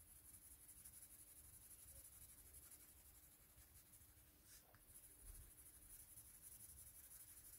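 Faint, soft scratching of a Spectrum Noir coloured pencil shading lightly over heavy white card.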